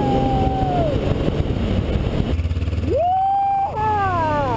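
Motorcycle engine running at a steady road speed under wind noise, with two long whoops over it that rise and then fall in pitch.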